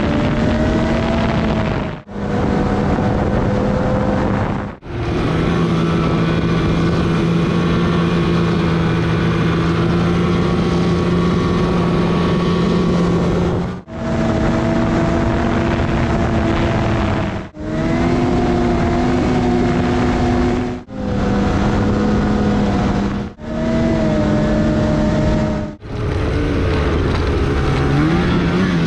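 Snowmobile engine running, heard in short stretches that break off abruptly every few seconds. The engine pitch differs from one stretch to the next, with one longer steady stretch early on.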